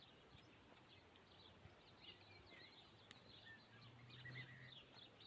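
Near silence with faint, scattered bird chirps and twitters throughout.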